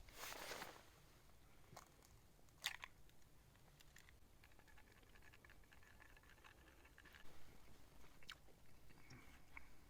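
Faint sounds of a person chewing food, with a few soft clicks and taps.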